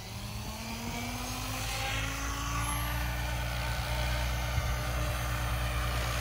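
Specter 700 V2 RC helicopter spooling up: its rotor hum climbs in pitch and grows louder over the first three seconds, then holds steady at flying speed as the helicopter lifts off and climbs away.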